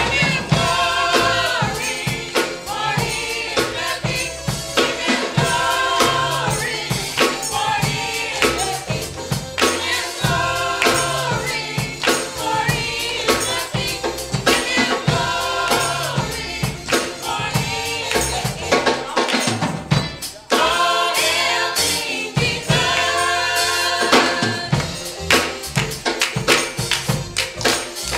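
A church choir of youth and adult voices singing a gospel song over a steady percussion beat. The music drops out briefly about twenty seconds in, then carries on.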